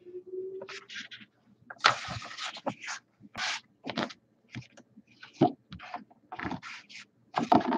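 A sheet of paper rustling and crinkling in short irregular bursts as it is handled and held up.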